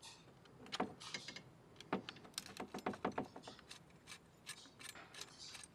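Irregular clicks and light metallic ticks of hand work on small hardware as a float level switch bracket is unfastened and taken out of a dehumidifier.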